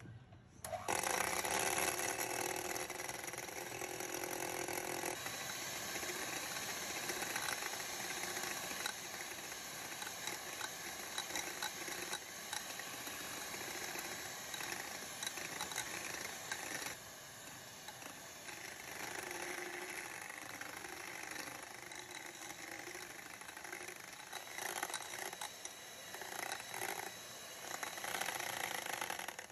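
Electric hand mixer running, its twin beaters whipping a cocoa and sugar mixture in a ceramic bowl; the motor switches on about a second in and keeps up a steady whir.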